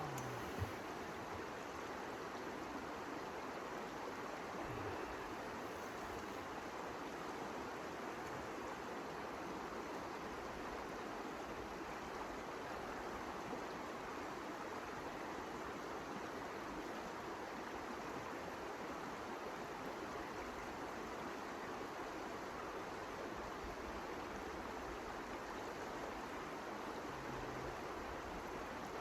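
Steady rushing noise with no distinct events, with a short knock just after the start.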